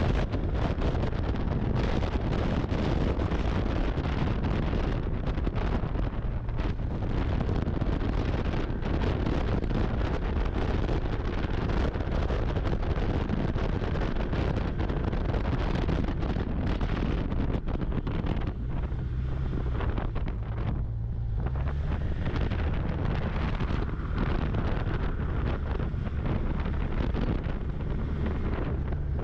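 Snowmobile running at speed, its engine a low drone under heavy wind buffeting the microphone.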